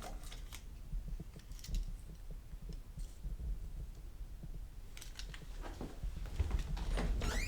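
A low, steady rumble with scattered small clicks and taps, a few in the first two seconds and more around five to six seconds in.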